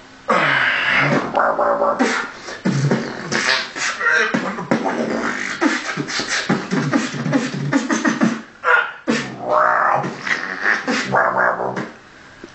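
A man beatboxing a dubstep-style piece with his mouth: wobbling growls, sweeps and clicks that imitate the sounds of a bowel movement. There is a brief break about two-thirds through, and it stops shortly before the end.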